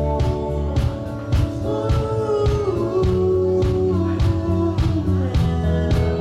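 Rock band playing with a steady drumbeat, bass and guitar, and a held melodic line that wavers and slides in the middle.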